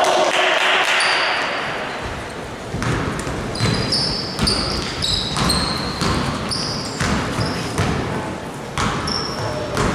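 Several basketballs being dribbled on a gym floor, an irregular stream of bounces several a second, with short high squeaks of sneakers on the court.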